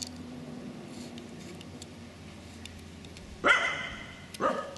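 Two short, loud animal calls about a second apart near the end, over a faint steady background hiss.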